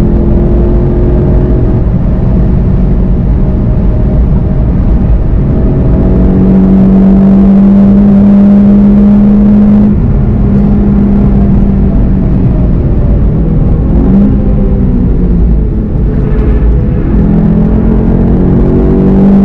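VW Golf GTI TCR's turbocharged four-cylinder engine heard from inside the cabin, pulling hard at high speed with a steady drone. About ten seconds in it eases off and the pitch falls as the car slows, then it comes back on power near the end.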